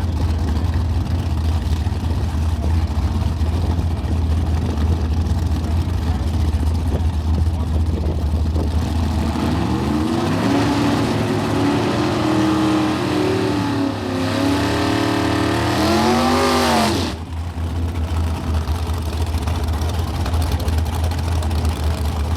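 Drag-racing car engines idling with a steady low rumble, then revving up and down several times from about the middle and cutting off abruptly, while the idle rumble goes on.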